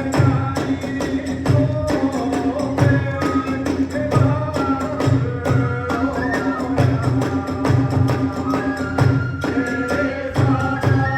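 Kagura hayashi ensemble playing: a high bamboo flute melody over fast drumming and the rapid, jingling clash of small hand cymbals, in a steady driving rhythm.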